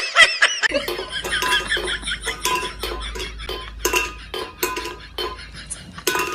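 Rapid clinking and clattering of small hard objects, some ringing briefly, over a low hum, after a few high squeaks at the start.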